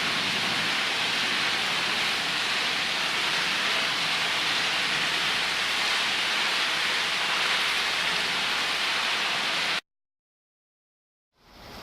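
Heavy rain falling steadily, from a thunderstorm recording. It cuts off suddenly near the end, and after a second and a half of silence another storm recording fades in.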